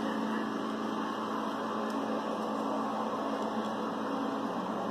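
Steady, even whirring background hum with no speech and no distinct events, of the kind a running fan or air conditioner makes.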